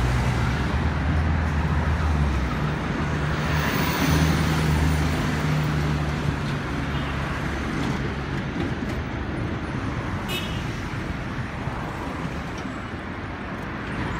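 Road traffic on a city street: cars and minibuses driving past with engine and tyre noise, a low engine drone strongest over the first half. A brief high-pitched sound about ten seconds in.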